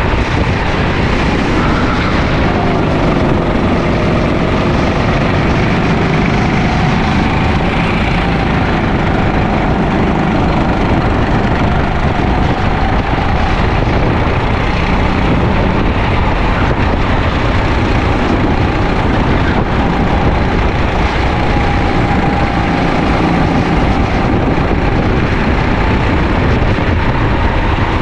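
Sodi LR5 rental kart's engine running at race pace, heard onboard over a loud rushing noise, its pitch rising and falling as the kart accelerates and slows through the corners.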